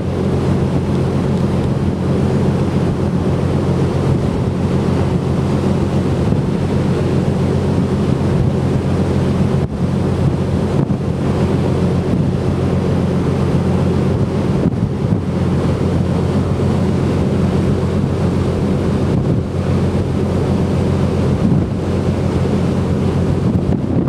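A ferry under way: a steady low drone of the ship's engines over the rushing of the churned wake water, with wind buffeting the microphone.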